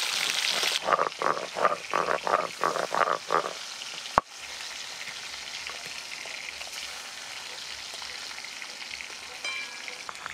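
Hilsa pieces frying in mustard oil in a metal kadai, sizzling. In the first few seconds a spatula scrapes through the pan in a quick rhythmic run of about three strokes a second. About four seconds in comes one sharp knock, and the sizzling carries on more quietly after it.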